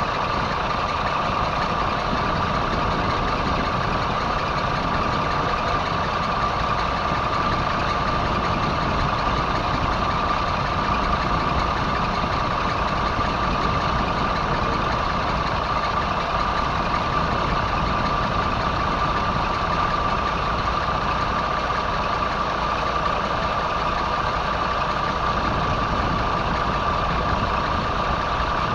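Boat's inboard engine idling steadily, with a constant high whine over the low running noise.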